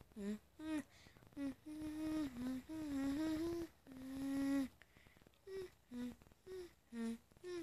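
A boy humming a wordless tune close to the microphone: short notes about two a second, stepping up and down in pitch, with a stretch of longer, louder held notes in the middle.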